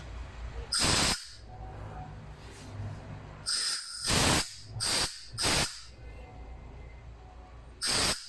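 Six short hissing blasts of compressed air from the repaired air compressor, each under half a second: one about a second in, four close together in the middle, and one near the end.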